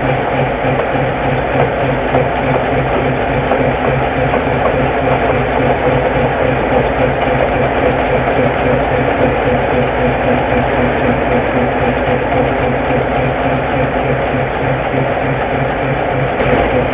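Diesel engine of a Whitcomb 65-ton diesel-electric locomotive running steadily, with an even, rapid low pulse.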